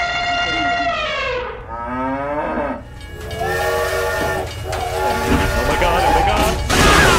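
Cartoon sound effects: a long animal call and a rising one, then a toy steam train's whistle blowing twice over a steady hiss, ending in a loud rush as the train speeds in.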